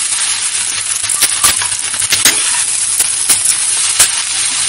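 Boiled potatoes and onions frying with a steady sizzle in a stainless steel kadhai over low heat, while a metal spatula stirs them. The spatula clinks and scrapes sharply against the pan many times.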